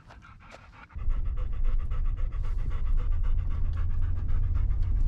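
An old Vizsla panting rapidly after a hike, tongue out. About a second in, a loud steady low rumble comes in under the panting and stays.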